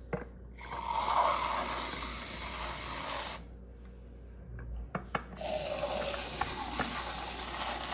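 Aerosol can of whipped cream spraying cream out in two long hisses of about three seconds each, a couple of seconds apart.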